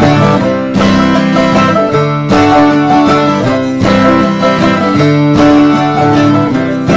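Instrumental music led by plucked strings, with steady rhythmic notes.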